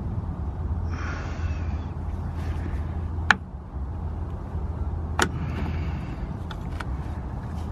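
Handling noise as a new diesel fuel filter and its clamp are fitted up under a BMW: gloved hands scraping and rustling against the metal canister and clamp, with two sharp clicks a couple of seconds apart. A steady low hum runs underneath.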